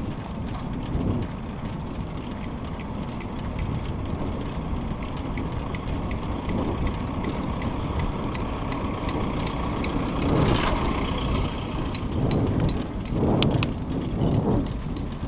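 Steady rumble of wind and road noise while riding a bicycle, with light ticks repeating evenly through the middle and a louder rush about ten seconds in.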